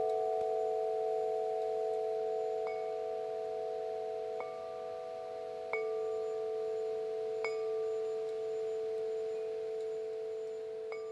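Deep metal wind chimes ringing, with a few long tones overlapping. A new chime is struck every second or two, about five times in all, and each lets its note ring on.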